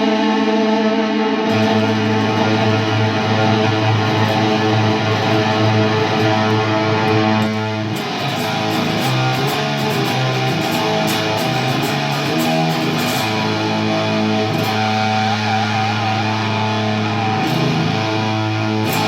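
Electric guitar played through a Sola Sound Fuzz-Straight treadle fuzz pedal with delay added: thick, sustained fuzz-distorted notes and chords. The notes change more often from about halfway in.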